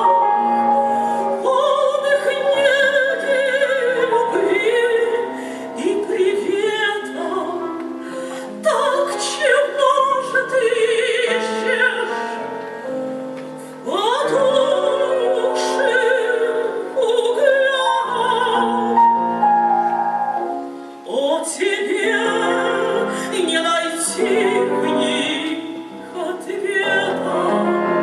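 Female classical voice singing an old Russian romance in phrases with wide vibrato, accompanied by piano.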